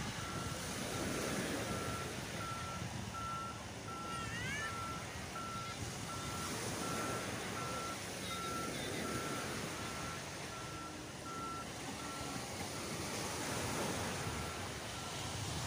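Reversing alarm of a beach-cleaning machine, beeping steadily about twice a second and growing fainter near the end, over the wash of wind and surf.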